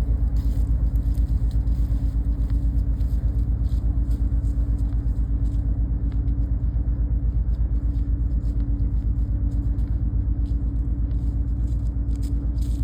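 An engine running with a steady low rumble and a fast, even throb.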